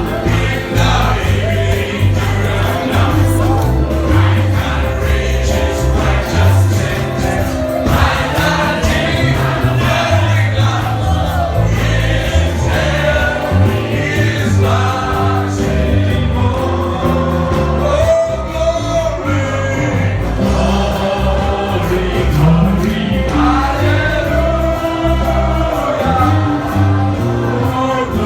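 Gospel praise music: a choir of voices singing over a steady bass-heavy band accompaniment.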